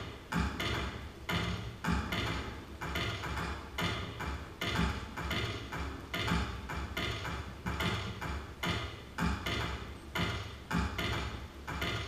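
Live electronic music: an uneven Euclidean rhythm of sharp clicking and knocking hits, several a second, made from processed field recordings and live input, over a steady low drone.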